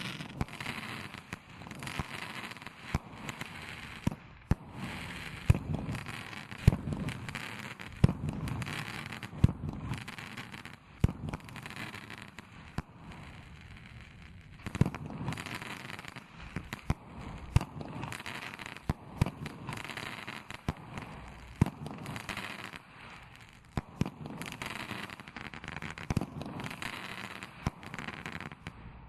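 A consumer multi-shot aerial firework cake (Black Cat 'Take That!') firing crackling mine shots: a sharp launch report every second or two, with dense crackling between them as the red, green and blue crackle effects burst.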